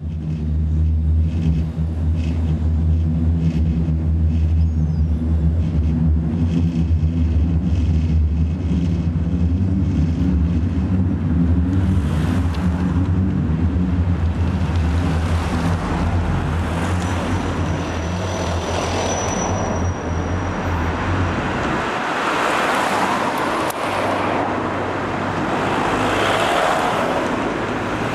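Street traffic: a vehicle engine runs with a steady low hum that stops about three-quarters of the way through, then cars drive past with tyre and engine noise swelling twice. A short high-pitched squeal sounds midway.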